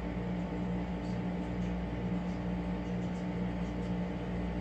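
A steady low machine hum with a few fixed tones that pulse slightly, and a few faint small ticks over it.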